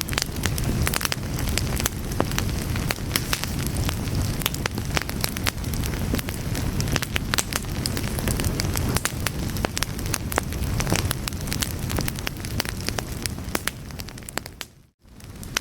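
Crackling fire: a dense run of sharp pops and snaps over a low rumble. About fifteen seconds in it fades almost to silence for a moment, then comes back.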